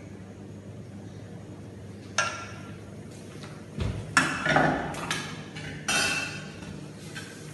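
Metal kitchenware clanking: a frying pan and tongs handled and set down at a commercial stove, with separate clanks about two, four and six seconds in, over a steady low hum.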